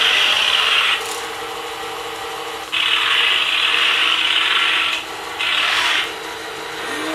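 Radio-controlled Tiger I model airsoft tank driving on its tracks over a cushion: its geared electric drive whirring and grinding in three loud spells, dropping to a quieter, steadier hum between them.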